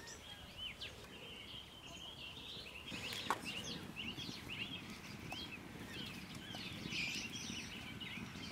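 Birds chirping and calling, many short rising and falling notes, over a low rustling background, with one sharp click about three seconds in.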